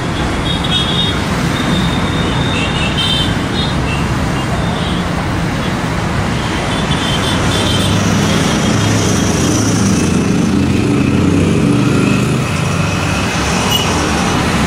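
Steady outdoor background noise like distant road traffic, with short high-pitched tones now and then.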